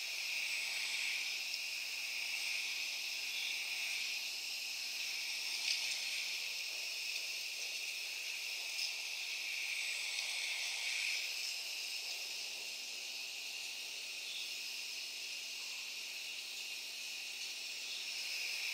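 Electroactive polymer membranes in a sound installation playing a manipulated forest recording: a steady high hiss like an insect chorus, with a few faint clicks.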